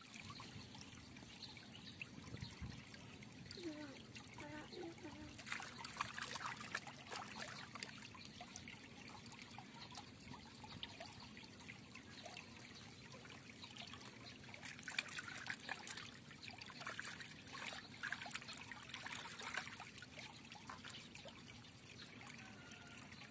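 Shallow stream trickling, with small splashes and drips from hands rinsing vegetables in the water.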